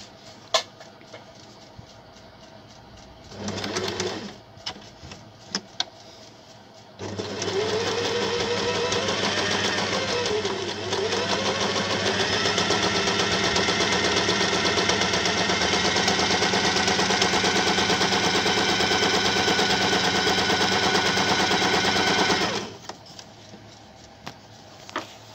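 Usha Janome Allure electric sewing machine stitching a second seam alongside the first. After a few clicks and a run of under a second, it sews steadily for about fifteen seconds and then stops.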